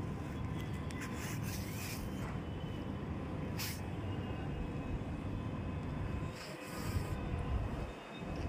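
Low rumble of wind buffeting a phone's microphone, easing briefly twice near the end, with a few faint handling rustles.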